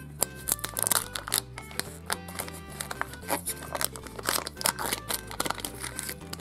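Kinder Joy egg being unwrapped by hand: the foil wrapper peeled and torn off, then the plastic capsule opened and a plastic toy bag handled, giving irregular crinkling, tearing and clicking over quiet background music.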